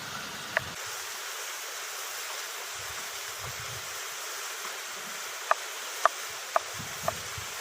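Steady rush of flowing stream water, with a run of short, sharp clicks about two a second near the end.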